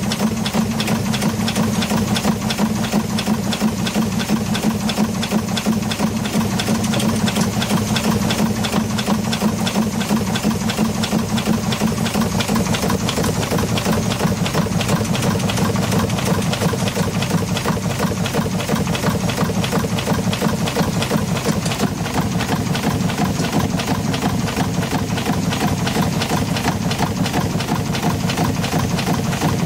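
Vertical marine steam engine running steadily, its rods, crossheads and valve gear making a fast, even mechanical clatter.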